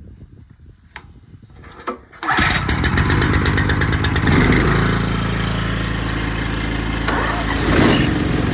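Truck-mounted pressure washer engine starting about two seconds in after a couple of faint clicks, then running at a steady speed.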